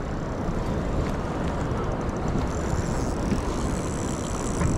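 Steady low rumble and hiss of a fishing boat's motor and the wind and water around it, with no clear single event standing out.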